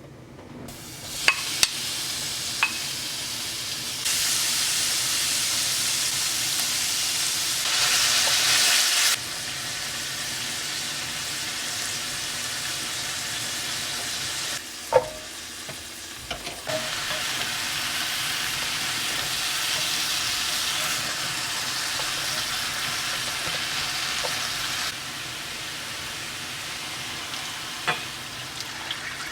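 Food sizzling as it fries in a pan, a steady hiss that jumps up and down in level in steps, with a few sharp taps or clicks, the loudest about halfway through.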